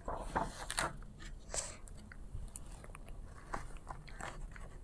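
Quiet scattered clicks and short rustles from a hardcover book being held and handled close to a clip-on microphone.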